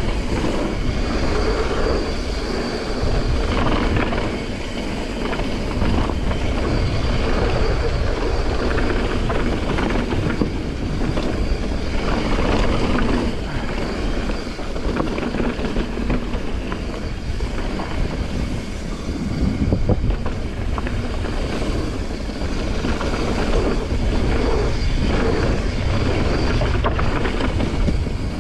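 Mountain bike ridden fast down a dirt trail, heard from a camera on the bike or rider: wind buffeting the microphone over tyre noise on the dirt, with frequent small clicks and rattles from the bike over bumps.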